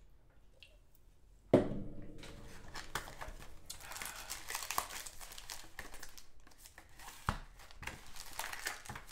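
A cardboard trading-card hobby box being opened and its wrapped card packs handled, crinkling and rustling with many small clicks. It begins with a sharp scrape about a second and a half in.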